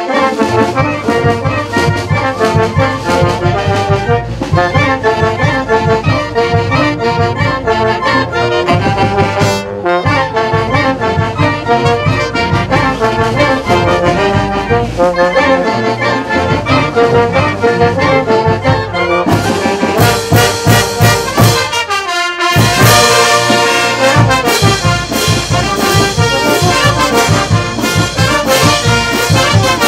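Brass band playing: trumpets and trombones over a steady drum beat. The music drops out briefly twice, about a third of the way in and again about three quarters through.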